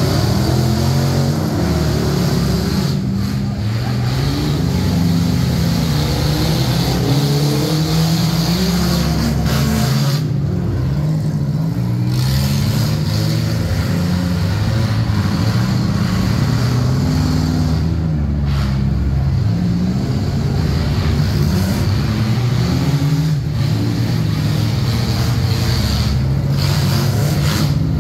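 Several enduro derby cars' engines running and revving together as they race laps, their pitches rising and falling continually as drivers accelerate and back off.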